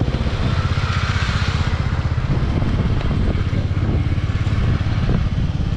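Motorcycle engine running steadily as the bike rides along, a low pulsing rumble under a steady rush of road and air noise.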